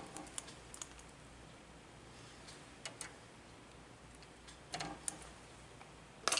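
Hand wire strippers clicking and snipping on the insulation of a solid copper wire, with small handling clicks of the wire and tool. The clicks come in a few short clusters, the loudest near the end.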